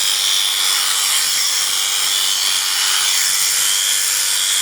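Electric sheep shears running steadily with a constant buzz, clipping wool.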